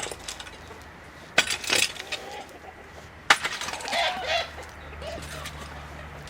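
Chickens clucking, with two sharp clatters, one about a second and a half in and another a little after three seconds.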